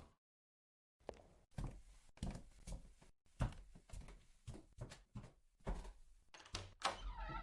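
Foley sound effects: after a second of dead silence, a run of about a dozen irregular knocks and thuds with low thumps under them. A wavering, higher-pitched sound starts near the end.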